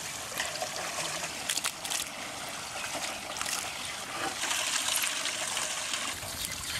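Water poured from a vessel onto a heap of raw chicken pieces in a metal tray, trickling and splashing as the meat is rinsed by hand. The splashing grows a little heavier about four and a half seconds in.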